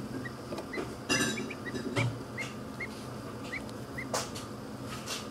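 Muscovy duckling peeping: short high peeps about twice a second. A steady low hum runs underneath, and a few brief scuffling knocks stand out, the loudest about a second in and another near four seconds.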